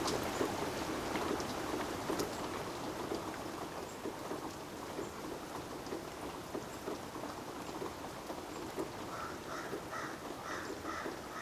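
Rain pattering, with many small irregular drops. Near the end, a short high chirp repeats about three times a second.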